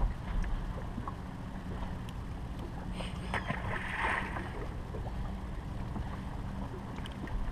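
Bass boat sitting on calm water: a steady low hum with water sounds against the hull. A brief hiss comes about three seconds in.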